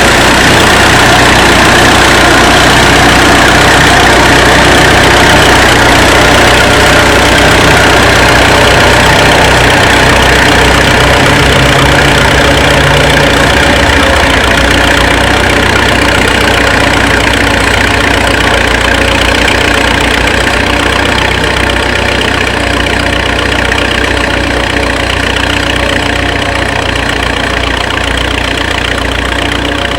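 1935 Fordson tractor's four-cylinder engine running steadily, growing a little fainter over the last several seconds.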